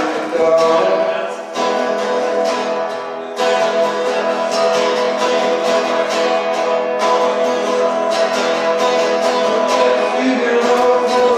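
Acoustic guitar strummed in a steady rhythm, with a voice singing over it in a live acoustic song.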